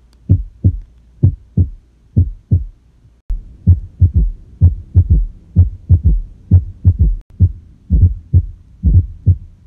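Recorded heart sounds as heard through a stethoscope: low paired beats, the first (S1, "lub") and second (S2, "dub") heart sounds, at about one pair a second. About three seconds in, the recording changes and the beats come closer together over a louder background hum.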